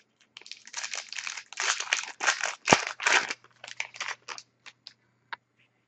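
Trading cards being handled: a run of dry rustles, crinkles and flicks as cards are slid and shuffled, with one sharper snap near the middle.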